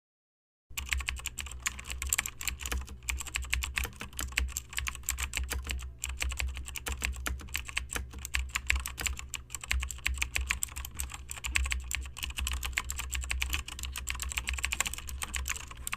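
Fast, continuous typing on a computer keyboard, a dense run of keystroke clicks over a steady low hum, starting just under a second in.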